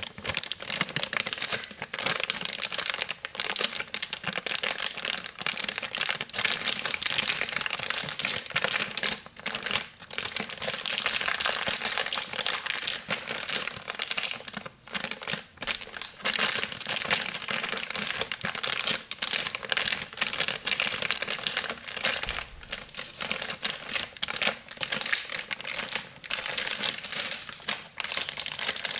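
Soft plastic wrapper of a pack of wet floor-mop wipes being crinkled and scratched by fingers close to the microphone, a continuous crackle broken by brief pauses.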